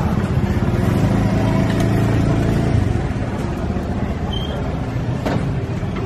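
A motor vehicle's engine running close by: a steady low hum, loudest for the first three seconds and easing a little after that.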